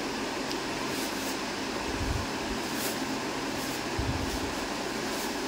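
Steady whooshing noise of a running electric fan, with faint crinkles of a thin plastic bag being handled and opened, and two soft low thumps about two seconds apart.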